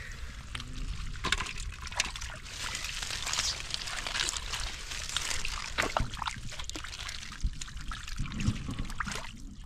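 Hands working through shallow muddy water, sloshing, trickling and squelching, with many small wet slaps and clicks.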